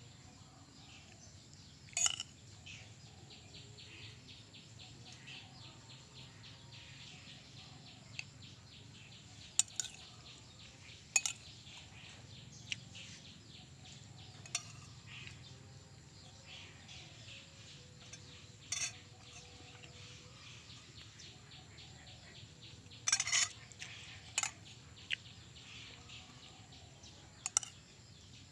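Outdoor ambience with small birds chirping faintly on and off, broken by several sharp clicks or clanks.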